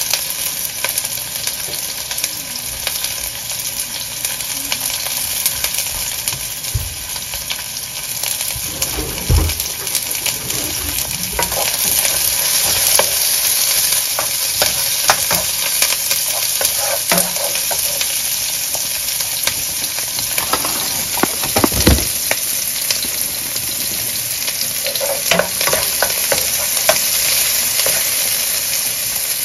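Diced onion frying with a steady sizzle in a nonstick skillet, stirred with a wooden spoon that scrapes and knocks against the pan now and then.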